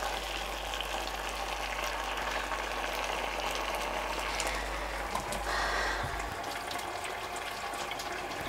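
Creamy cheese sauce and a turkey, tomato and soy-sauce mixture bubbling and sizzling in a hot electric double skillet, a steady hiss, while being stirred with a wooden spatula.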